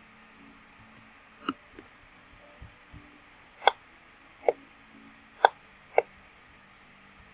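About eight sharp, separate clicks of a computer mouse and keyboard at irregular intervals, two of them louder, over a faint steady hum.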